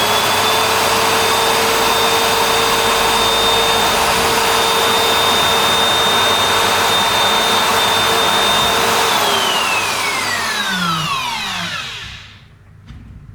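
Bosch POF 1200 AE plunge router's electric motor running at a steady high whine, then switched off about nine seconds in and spinning down with a falling pitch until it stops about three seconds later.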